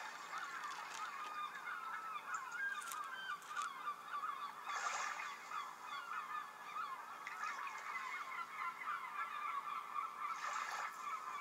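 A dense chorus of many birds calling at once, short wavering calls overlapping without a break.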